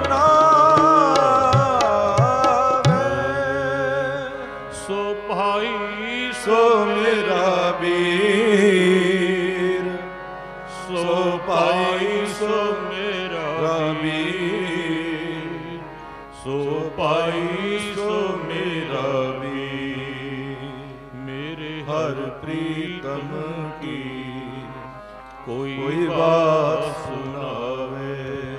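Sikh kirtan: a sung devotional melody, the voice sliding and bending through long held notes, over harmonium drone and chords, with tabla strokes in the first few seconds.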